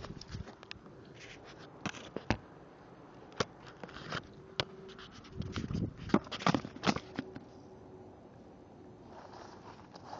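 Scraping and rustling with a series of sharp clicks, most of them bunched together about six to seven seconds in.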